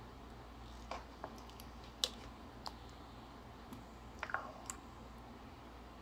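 Scattered light clicks and taps at irregular intervals, the sharpest about two seconds in, over a faint low hum.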